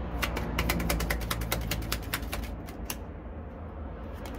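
A deck of reading cards being shuffled in the hands: a rapid, irregular run of crisp clicks that thins out about three seconds in, over a low steady rumble.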